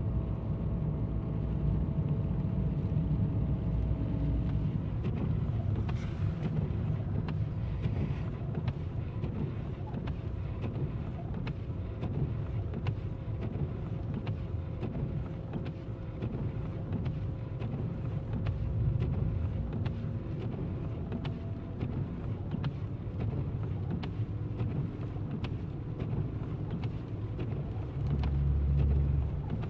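Car driving on a snow-covered road, heard from inside the cabin: a steady low rumble of engine and tyres with a faint engine hum. The rumble swells louder for a moment near the end.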